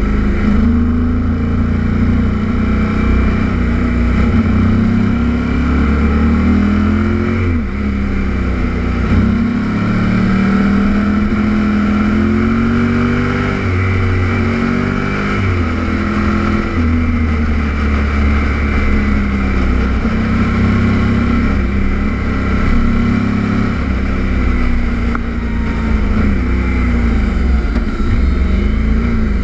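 Kawasaki Z800's inline-four motorcycle engine under way, its pitch rising and falling with the throttle and dropping sharply several times as the rider shifts or rolls off. Wind rushes over the camera throughout.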